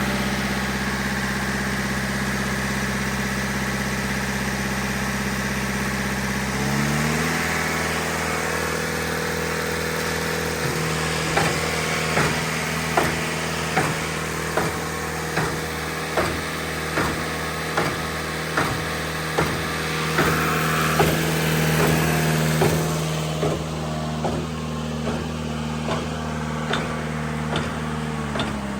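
Olin 545 concrete pump's engine running, stepping up in speed about seven seconds in, then the pump stroking with a regular clunk a little faster than once a second as it is primed for the pour. The engine drops back to idle near the end.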